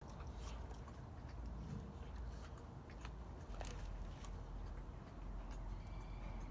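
Two pit bull puppies play-fighting: scattered snaps and scuffles of jaws and paws over a steady low rumble.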